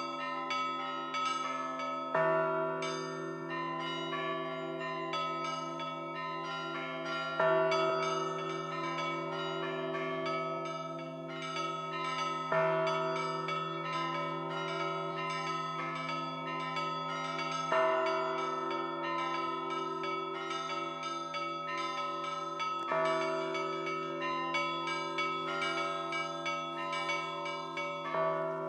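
Russian Orthodox church bells rung by a bell ringer: a large low bell struck about every five seconds under a steady, rapid pattern of smaller bells.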